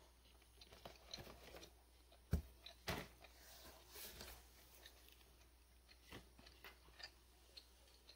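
Faint, intermittent cutting and scraping of a knife peeling green matooke bananas, with scattered small clicks and crunches as the peel is sliced away; a sharper knock a little over two seconds in.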